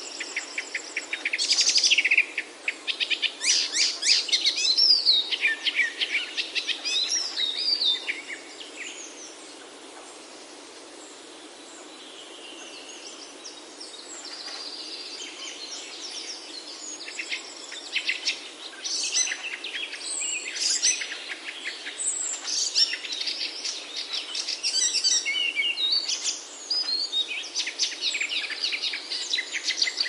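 Several small songbirds chirping and singing quick, high trills. The calls are busy at first, ease off for a few seconds in the middle, then pick up again, over a faint steady hiss.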